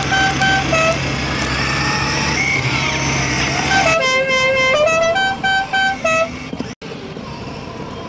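A simple electronic tune of clean, stepped beeping notes, repeating a short phrase, from a battery-powered ride-on toy car's built-in sound. A steady low hum sits under the first half and stops abruptly about four seconds in, where the tune starts over.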